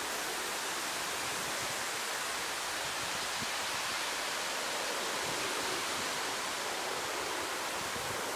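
Steady, even rushing outdoor background noise, with no distinct events.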